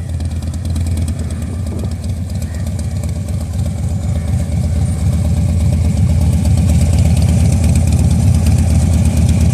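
Harley-Davidson Dyna Street Bob V-twin idling steadily through a custom-built exhaust, growing gradually louder.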